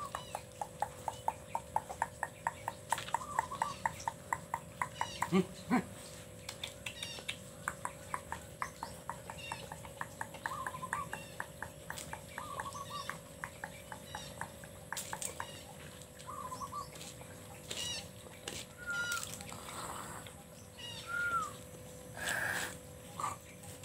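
Birds calling outdoors: a fast run of short repeated chirps, about three a second, through the first half, then scattered whistled notes, over a steady high hum.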